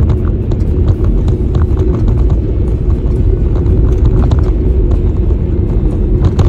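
Car driving at steady speed, heard from inside the cabin: a loud, even low rumble of engine and tyre road noise, with scattered faint ticks.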